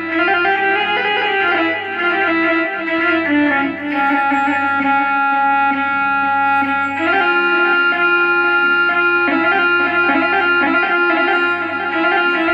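Electronic keyboard playing a rababa (Arab spike fiddle) sound in an 'ataba and mawwal style melody, a fiddle-like line that moves between held notes over a steady low drone.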